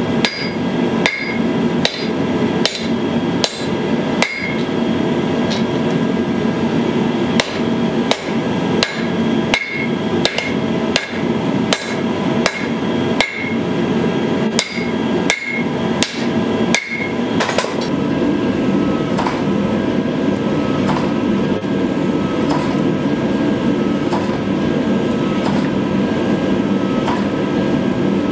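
Hammer blows on a red-hot steel sword blank lying on an anvil, about one and a half a second, each with a short metallic ring, over a steady rush from the forge running. The hammering stops a little past halfway, leaving only the forge's steady rush.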